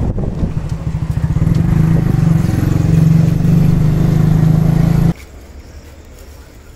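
A motor vehicle's engine running close by with a rapid, even pulse. It grows louder over the first couple of seconds and stops abruptly about five seconds in.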